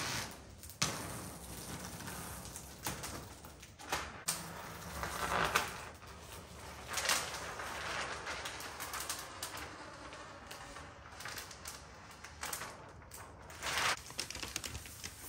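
Thin protective plastic film being peeled off a large TV screen, crinkling and rustling in irregular bursts with a few sharp clicks.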